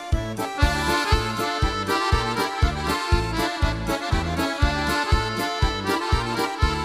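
Accordion playing an instrumental passage of a Polish folk tune, over a steady bouncing bass-and-chord beat of about three to four strokes a second.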